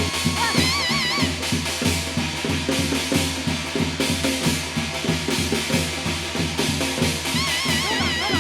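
Korean shamanic ritual (gut) music: steady, fast drumming, with a high wavering melody heard briefly about half a second in and again near the end.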